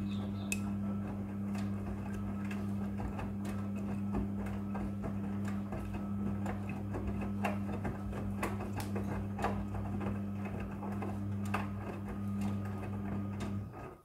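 Front-loading washing machine tumbling a wet load during the wash cycle: a steady hum with irregular clicks and knocks as the clothes fall in the drum.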